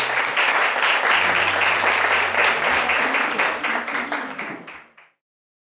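A small group of people applauding: dense, steady clapping that fades out and stops about five seconds in.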